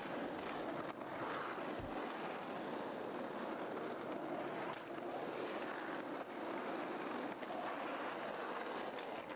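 Skateboard wheels rolling on pavement, a steady rough hiss, with a low thump about two seconds in.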